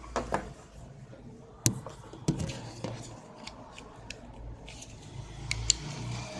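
Sharp plastic clicks and scrapes of a USB modem being handled and plugged into a USB extension cable, the loudest click a little under two seconds in and a quick pair of clicks near the end.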